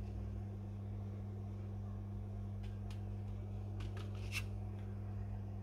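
A few light clicks from a red plastic plate of baked cheese crackers being handled, starting about halfway through, the last one the loudest. A steady low hum runs underneath.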